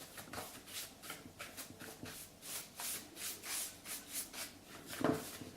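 Soft paintbrush bristles sweeping back and forth over a laptop screen to clear dust, with even hissing strokes about three a second. A short, louder low sound comes near the end.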